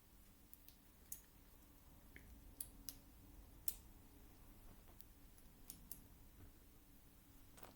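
Faint, scattered small plastic clicks and taps of Lego pieces being handled and pressed together, about eight in all, the loudest a little before the middle.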